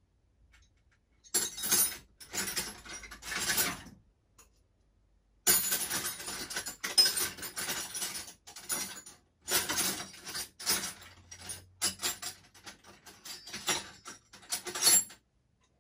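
Rapid mechanical clicking and rattling in stop-start bursts: a short burst about a second and a half in, then a longer run of bursts from about five and a half seconds until near the end.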